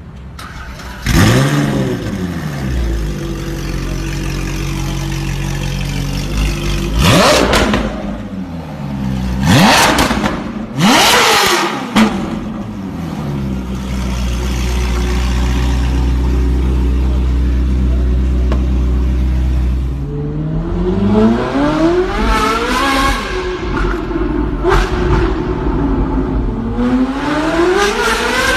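Ferrari engine revving loudly in several sharp surges, settling into a steady low rumble for a few seconds, then climbing and falling through more revs toward the end.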